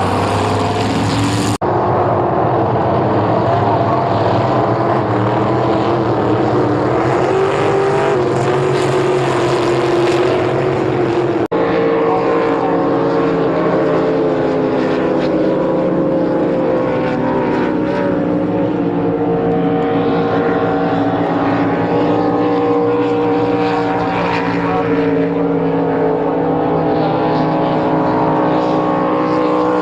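Racing powerboat engines running at speed, a steady loud drone whose pitch drifts slowly, cut off abruptly and resumed twice.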